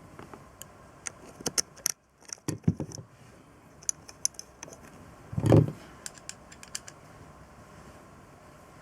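Small metal parts and hand tools clinking and clicking as they are handled, with one louder thump about five and a half seconds in.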